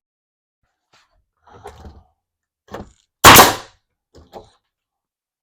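A single loud, sharp bang as a tack is driven into plywood on the layout's benchwork. Quieter handling rustles and a click come before it, and a couple of small clicks follow.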